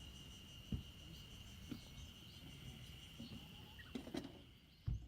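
Faint steady high insect trill, like a cricket, running throughout, with a few soft low thumps and one sharper click about four seconds in.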